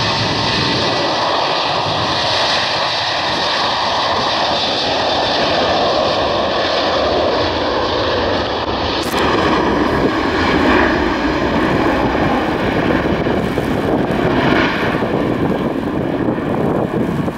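Ryanair Boeing 737-800's CFM56 jet engines at take-off power during the take-off roll on a wet runway: a loud, steady jet noise with a whining tone through it. The sound changes abruptly about nine seconds in and grows a little louder.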